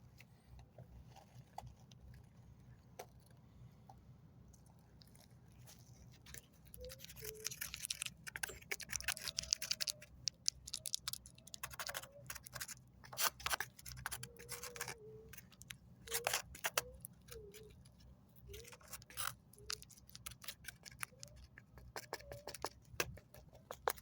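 Body filler being worked and spread with a spreader: irregular scraping and clicking strokes starting about six seconds in, with short squeaks, over a low steady hum.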